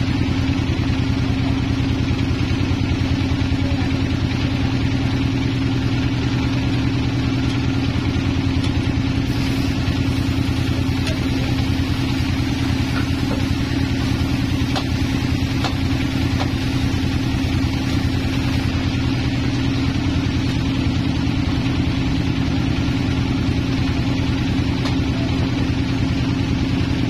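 The sawmill's power unit runs steadily with an even low hum and rapid pulsing, the band saw idling without cutting. A few faint knocks come around the middle.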